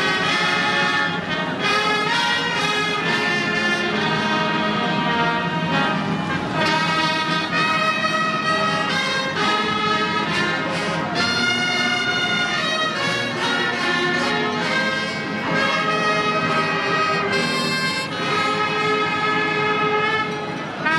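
Brass band playing an anthem, with trumpets and trombones sounding held chords at a steady, stately pace.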